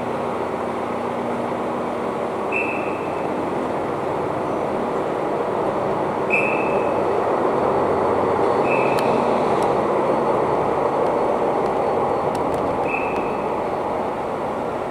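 Car driving off a ferry: steady engine and road noise, with short high beeps every few seconds and a few sharp clicks about midway.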